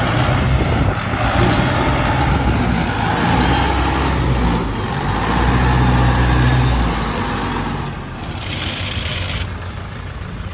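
Engine of a small tracked field platform running steadily as it crawls through a wet, harvested rice field. It swells a little in the middle and eases off about eight seconds in.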